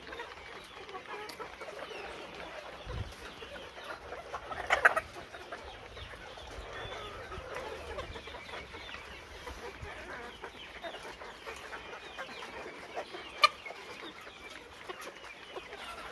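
A flock of caged Arab laying pullets clucking and chattering continuously. A short, louder burst comes about five seconds in, and a single sharp click about thirteen seconds in.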